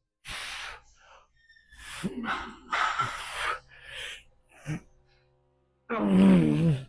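A man's effort sounds while lifting heavy dumbbells: sharp hissing exhales and heavy breathing with short grunts, then a loud, drawn-out strained groan near the end.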